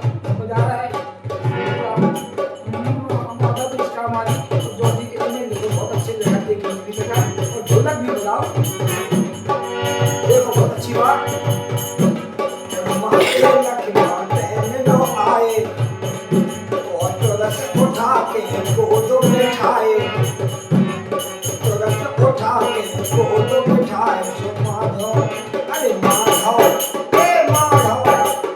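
Bundeli folk music: a steady, fast drum beat with jingling percussion and a wavering melodic line, as in an instrumental stretch of a Dhimrai song.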